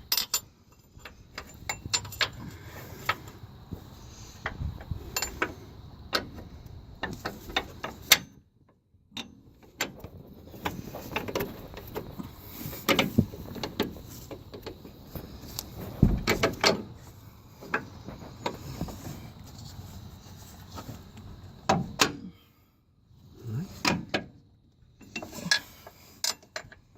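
Metal suspension parts and hand tools clinking and knocking at irregular intervals as the bolts of a new upper control arm are worked into place, with a few louder knocks along the way.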